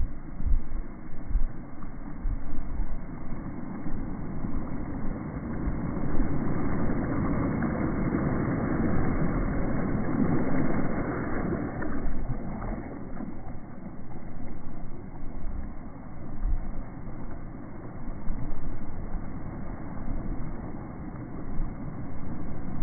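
Steady low rushing noise of wind and water, with low thumps of wind buffeting the microphone. It swells louder around the middle.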